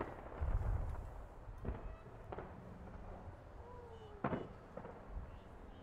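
Aerial fireworks going off: a deep boom about half a second in, then a few separate sharp bangs, the sharpest just after four seconds.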